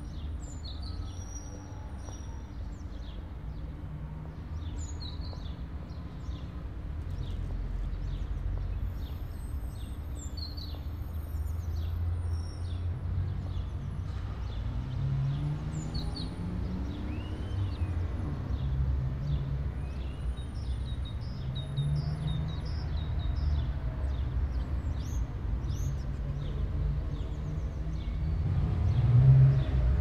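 City-square ambience: a steady low hum of distant traffic with small birds chirping throughout. Engine sound rises and falls a few times midway, and a nearer vehicle swells louder near the end.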